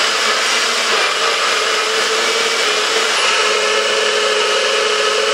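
NutriBullet blender running steadily, its motor holding one even pitch as it blends a packed cup of fruit, kale, almond milk and ice into a smoothie.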